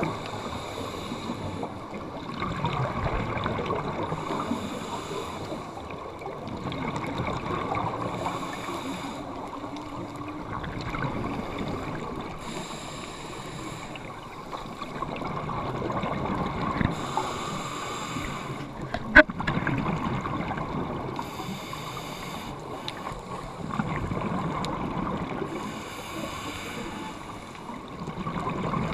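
Scuba diver breathing through a regulator underwater: bursts of exhaled bubbles every few seconds over a steady underwater hiss, with one sharp click about 19 seconds in.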